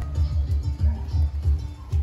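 Music with a heavy, pulsing bass beat and short melodic notes.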